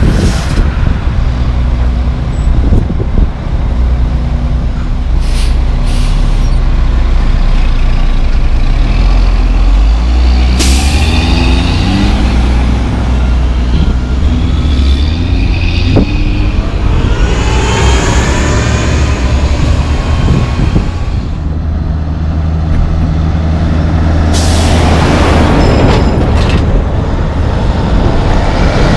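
Heavy diesel dump trucks pulling away from a stop, their engines rising in pitch as they accelerate through the gears, with several short sharp air-brake hisses. Near the end a broad rush builds as another heavy truck passes close by.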